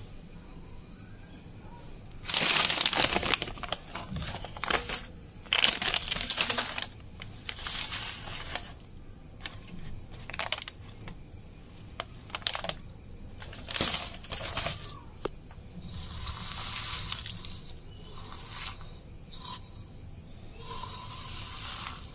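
Plastic vermicelli packet crinkling as it is handled and opened, in a string of short rustling bursts, the loudest about two and a half and five and a half seconds in.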